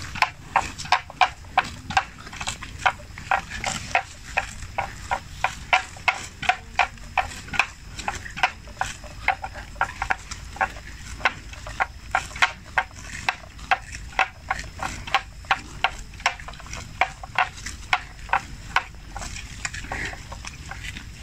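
Water buffalo grazing close by: steady crunching and tearing of grass, about two to three crunches a second, ending shortly before the end.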